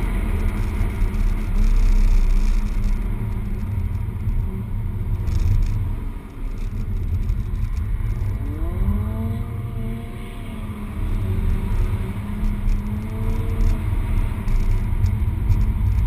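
Peugeot 208 GTi's 1.6-litre turbocharged four-cylinder, heard from inside the cabin at track pace with a steady low rumble. The engine note dips briefly about six seconds in, then its pitch swings up and down over the next few seconds as the car goes through a bend.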